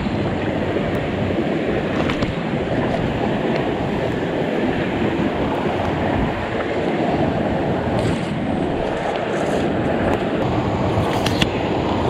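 Steady rushing of a flowing river, with a few light clicks here and there.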